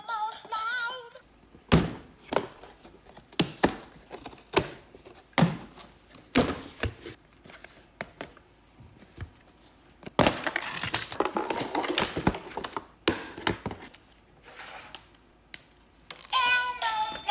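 Packaging of an Elmo Slide toy being handled and opened: a string of separate knocks and thunks, with a stretch of rustling and tearing about ten seconds in.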